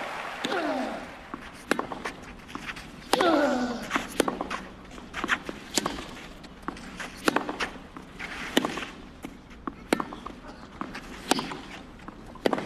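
Tennis rally on a clay court: a tennis ball struck by racket strings, sharp pocks about every second and a half as the two players trade groundstrokes. A player grunts with a falling pitch on the shot just after the start and on another about three seconds in. Crowd noise dies away in the first moment.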